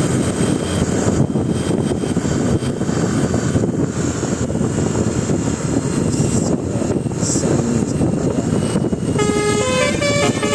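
A loud, steady din of a vehicle and its surroundings, then about nine seconds in a bus's Basuri telolet musical horn starts playing a tune of quick stepping notes.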